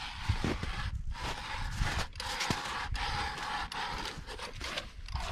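Footsteps crunching on soft, slushy pond ice, about one step a second, with low thuds as each foot lands.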